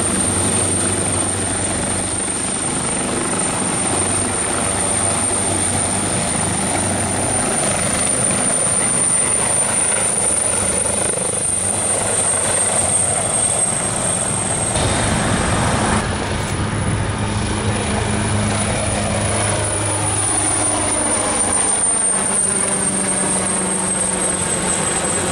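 Agusta Westland AW139 twin-turbine helicopter flying close by, hovering and then climbing away: a steady rotor throb under a continuous high turbine whine, which falls slightly in pitch near the end.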